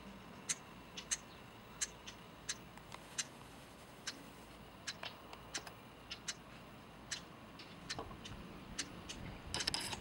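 Cactus wren giving a series of short, sharp clicking call notes at irregular intervals, two or three a second, with a brief louder noisy burst near the end.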